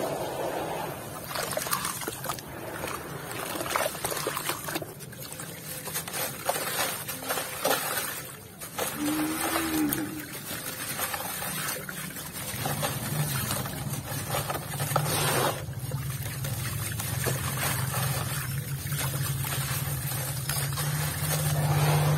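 Hands sloshing and squeezing wet, grainy red dirt in a tub of muddy water, with water trickling and gritty grains crunching and dribbling off a soaked lump of dirt. A low steady hum sits underneath from about halfway through.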